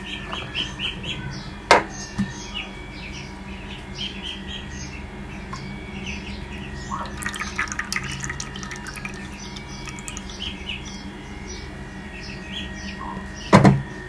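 Small birds chirping over and over in the background, with a sharp knock about two seconds in and a louder one near the end. A patter of small clicks and trickles around the middle as cooking oil is poured from a plastic bottle into a bowl of milk.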